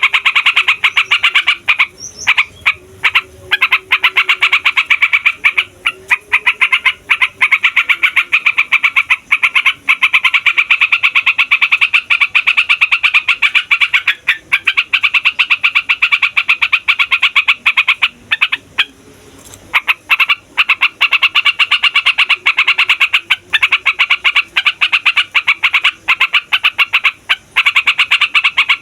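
Sooty-headed bulbul (trucukan) singing a long, rapid, unbroken run of notes, the rolling song known as 'ngeroll', with a brief break about two-thirds of the way through.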